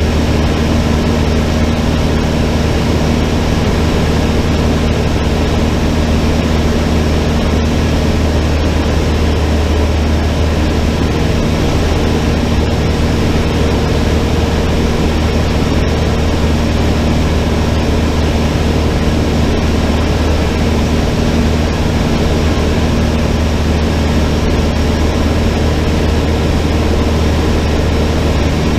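Cessna 152's four-cylinder Lycoming engine and propeller running steadily: a loud, constant low drone that holds the same pitch throughout.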